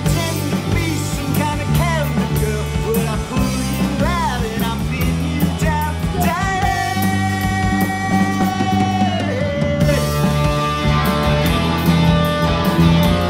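Rock band playing: drum kit, electric guitar and electric bass, with a man singing over the first part. One long held note runs from about six to nine seconds in.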